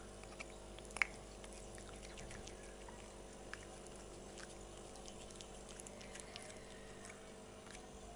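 Siamese cat licking and lapping food off a metal spoon: soft wet smacks and small clicks of tongue and teeth, with one sharper click about a second in.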